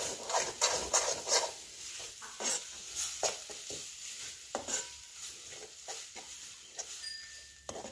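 A metal spoon stirring and scraping a thick masala paste around a metal pan in quick, irregular strokes. Under it is a light sizzle of the onion-coconut-garlic paste frying in oil until the oil separates.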